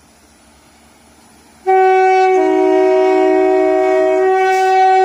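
Northern Ireland Railways Class 4000 diesel multiple unit's horn sounding one long blast of about four seconds, starting just under two seconds in. One note sounds first, a second lower note joins it, and then the first note carries on alone to the end.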